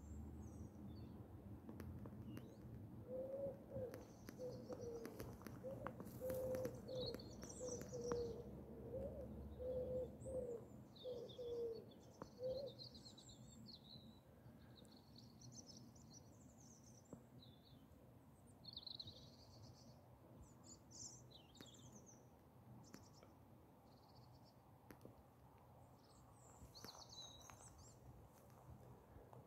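Faint outdoor birdsong: small birds chirping and trilling throughout. A pigeon coos a low, repeated phrase for about ten seconds in the first half, over a faint low hum.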